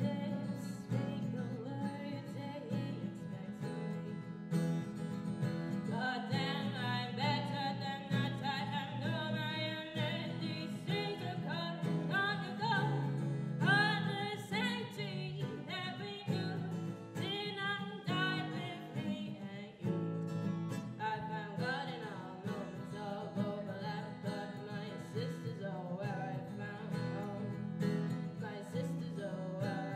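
A woman singing live while playing an acoustic guitar. The guitar plays alone for the first few seconds, then her voice comes in about six seconds in.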